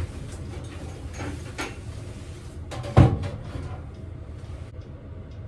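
Workshop handling knocks: light knocks and rustling, then one sharp loud knock about three seconds in, as a stove range hood is held up and bumped against the camper wall while its mounting height is tried.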